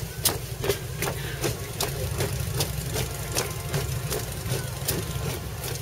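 Boots of a marching column striking the road in step, about two and a half footfalls a second, over a low steady engine rumble.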